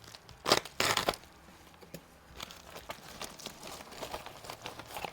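A mail package being torn open: two loud rips about half a second and a second in, then crinkling and rustling of the packaging.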